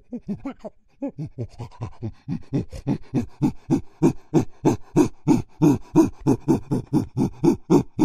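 Chimpanzee pant-hooting: a fast rhythmic series of in-and-out panting hoots, about three to four a second, building in loudness and breaking off suddenly at the end.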